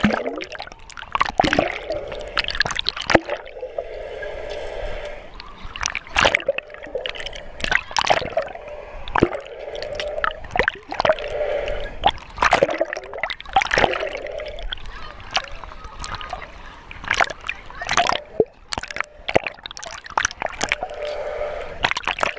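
Water splashing and gurgling in quick, irregular bursts.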